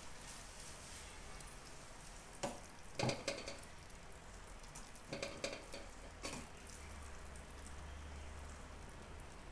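Steel ladle scraping and knocking against a pan while scooping thick pumpkin halwa into a serving bowl, in a few short clattery bursts about two and a half, three, five and six seconds in, over a faint steady hiss.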